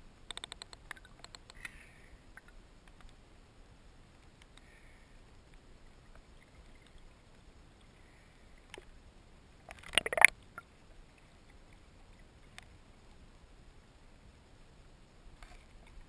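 Underwater sound picked up by a submerged camera in a freshwater reservoir: a faint steady hiss with scattered clicks, a quick run of clicks just after the start, and one louder short rushing burst about ten seconds in.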